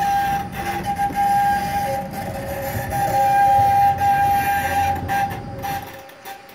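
A tram running on its rails: a low rumble with a steady high-pitched tone over it and a few clicks. The rumble cuts off about six seconds in, and the tone fades out with it.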